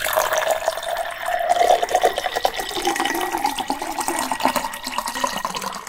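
Sound effect of a drink being poured into a glass: a steady stretch of liquid pouring and splashing.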